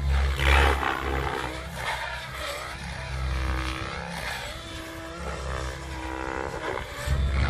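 Electric 3D RC helicopter with an Egodrift brushless motor flying aerobatics, its rotor and motor whine rising and falling in pitch again and again as the blade pitch is pumped through flips. An uneven low rumble runs underneath.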